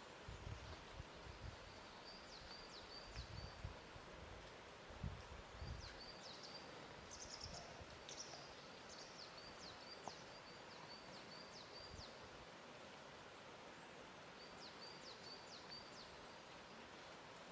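Faint lake ambience: a soft steady hiss with gentle low thumps of water lapping, and a small bird chirping in short, quick high-pitched runs several times.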